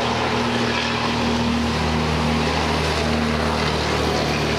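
Engine drone and road noise of a heavy tractor-trailer truck driving past on the highway, steady throughout.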